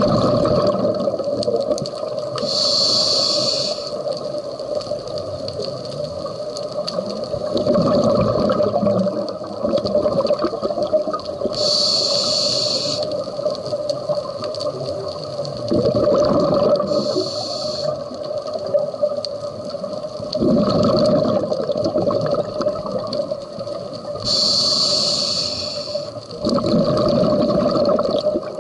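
Scuba diver breathing through a regulator underwater: a short hiss of each inhalation alternating with the bubbling rush of each exhalation, about five slow breaths, over a steady hum.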